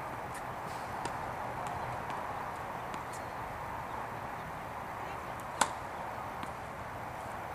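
A tennis racket strikes the ball once on a serve, a single sharp pop about five and a half seconds in, over a steady background hiss.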